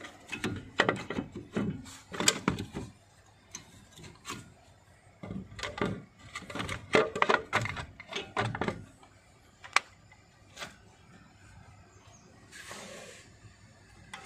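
Metallic clicks and knocks of disc brake pads and caliper parts being handled and worked loose from the caliper bracket, in two irregular bursts, then a few single sharp clicks and a brief hiss near the end.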